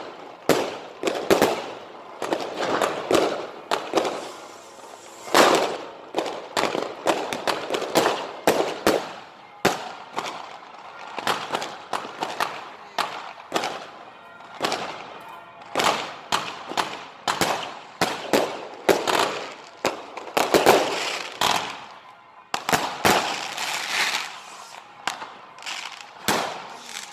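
Fireworks going off: aerial shells and rising rockets bursting in many sharp bangs and crackles, coming irregularly several times a second with a couple of short lulls.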